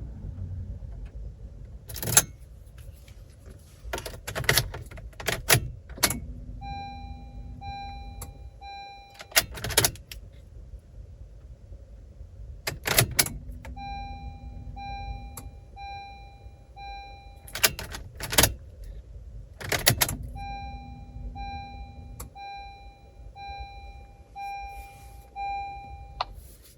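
Car key working a Honda Accord ignition during key programming: sharp clicks and key rattle as it is turned on and off. Three runs of short, evenly spaced electronic beeps come in between, each starting with a brief low tone.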